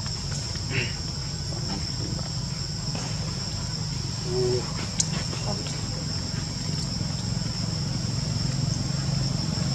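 Steady high-pitched insect chorus in forest undergrowth, two even shrill tones held throughout, over a low steady hum. A short high squeak comes about a second in and a sharp click about halfway through.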